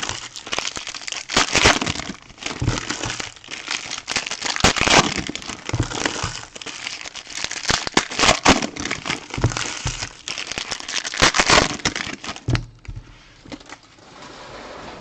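Plastic wrapping being torn and crumpled by hand while a trading-card box and its packs are opened, in irregular crinkling rustles that stop near the end.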